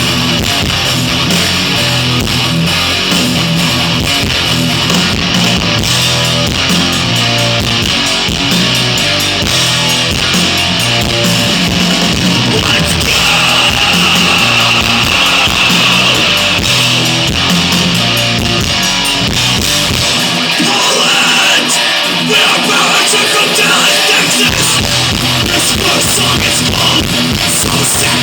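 Thrash metal band playing live, heard from the crowd on a low-quality recording: distorted electric guitars with bass and drums. Past the middle the bass and drums drop out for a few seconds, leaving the guitar alone, and then the full band comes back in.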